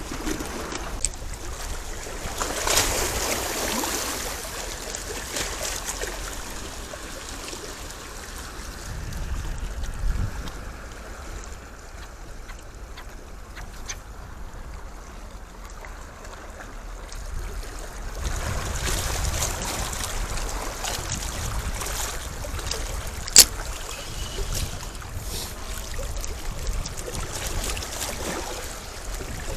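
Wind buffeting the microphone over the wash of sea water, with one sharp click about two-thirds of the way through.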